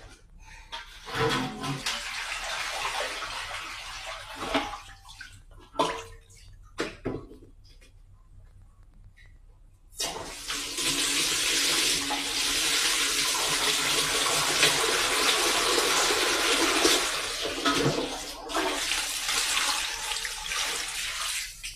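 Water splashing and sloshing in a basin during hand washing of shoes, with scattered knocks, then about ten seconds in a loud steady rush of running water that stops just before the end.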